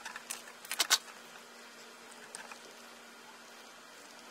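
Flat ribbon cable being torn apart lengthwise by hand, a strip of conductors peeled off along its seams: a few short tearing rasps in the first second, the loudest near its end, and a fainter one about midway, over a steady low hum.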